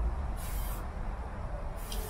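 Aerosol spray-paint can spraying in two short hisses, one about half a second in and another starting near the end, over a steady low rumble.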